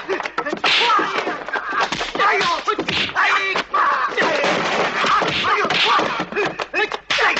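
Rapid dubbed punch and kick impact sound effects of a martial-arts fight, mixed with the fighters' shouts and grunts.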